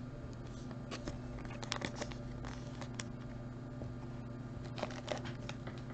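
Trading cards and a foil card-pack wrapper being handled on a table: scattered faint crinkles and light taps, a cluster about two seconds in and another near the end, over a steady low hum.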